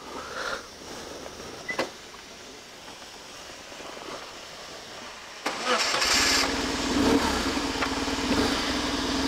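BMW R1100GS flat-twin boxer motorcycle engine being started: after a click, the starter cranks about five and a half seconds in and the engine catches and settles into a steady idle.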